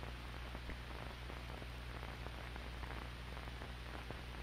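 Steady hiss and low hum of an old film's soundtrack between narration, with faint scattered crackles.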